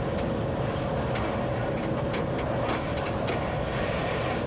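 Train running along the track, heard from the driver's cab: a steady rumble and hum with irregular sharp clicks of the wheels over the rails.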